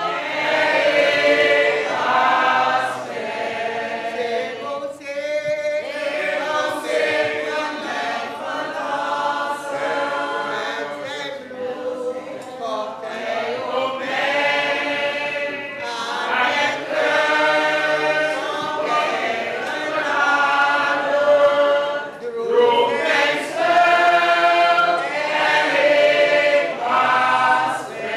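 A group of women singing together in chorus.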